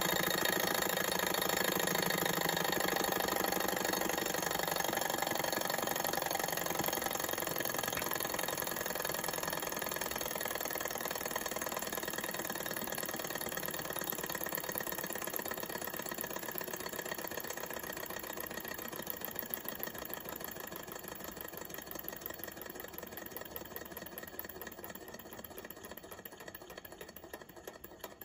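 Small model Stirling hot air engine running: a fast, even mechanical clatter from its pistons, linkage and spinning flywheel, growing gradually quieter towards the end.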